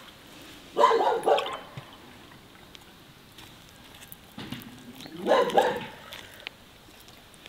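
A dog barking in two short bursts, about a second in and again around five seconds in.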